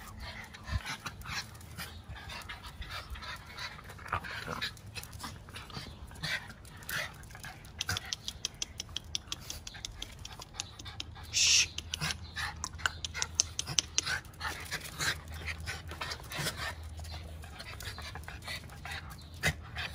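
Miniature schnauzers, a puppy among them, play-fighting: dog noises amid many quick scuffling clicks, with one louder, sharper noise about halfway through.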